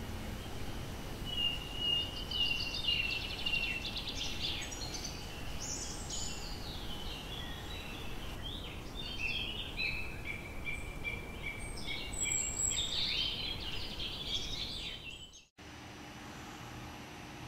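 Small birds chirping and twittering in quick repeated calls over a steady background hiss of ambient noise; the sound cuts off suddenly near the end, giving way to a quieter room tone.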